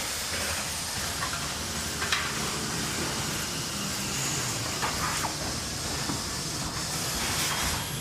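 Factory ambience: a steady hiss over a low machinery rumble, with a few sharp knocks scattered through it.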